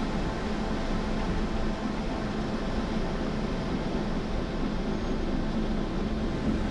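A 4x4 vehicle's engine running steadily on the trail: a constant low hum over even road and engine noise.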